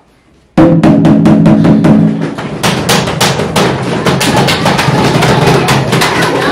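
Fast drumming, about six beats a second, starting abruptly about half a second in and running on at a steady loud level.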